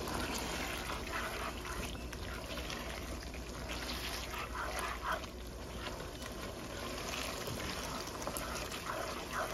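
A black spatula stirring and scraping thick chicken karahi masala around a non-stick pan as it fries, with a low sizzle under a few short scrapes. The yogurt just added is being fried (bhuna) into the masala.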